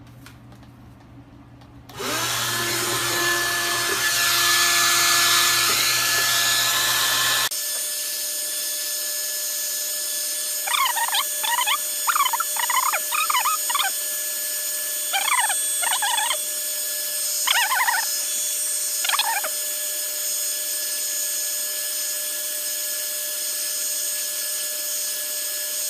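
Small handheld hair dryer switched on about two seconds in and blowing steadily, with a steady whine, heating a smartwatch to soften the display adhesive. Its low hum drops away abruptly about seven seconds in. A few short chirping sounds stand out over the air noise in the middle.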